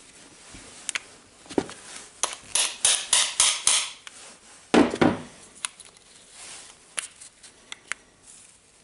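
Hammer striking the spindle of a Dewalt brushless drill's gear housing: a quick run of about six sharp metallic taps, then a heavier knock about five seconds in. Small clicks of metal parts being handled fill the rest.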